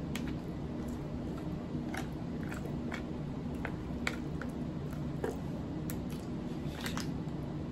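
Close-miked chewing, with scattered short wet mouth clicks and smacks.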